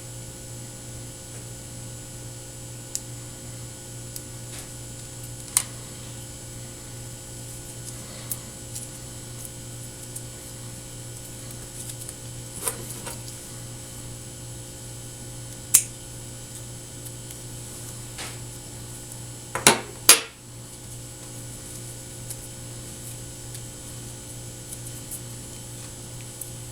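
Scattered sharp clicks and snips from cutting and handling HDMI ribbon cable with small hand tools, over a steady low electrical hum. The loudest is a quick pair of clicks about twenty seconds in.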